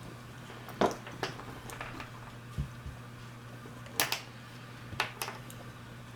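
About six short, sharp metallic clicks and taps, some in close pairs, from a screwdriver and small steel parts being handled as the revolver's cylinder crane retaining screw is fitted. A steady low hum runs underneath.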